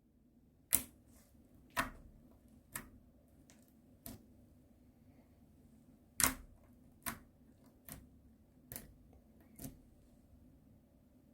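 Ice slime being pressed and poked, its hardened surface crackling in sharp, crisp clicks about once a second, with a short pause in the middle.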